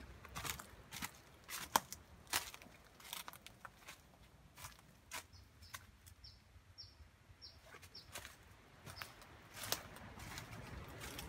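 Footsteps crunching on dry leaf litter and loose stones. About halfway through, a small bird gives a run of short, high chirps, roughly one every half second.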